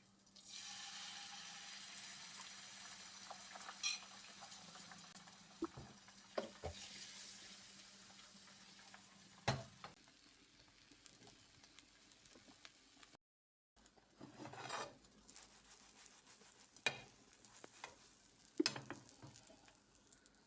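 Food sizzling in a hot pan, starting suddenly and then slowly dying down, with clinks and knocks of a utensil against the pan. Later come more stirring and scraping sounds with a few sharp knocks.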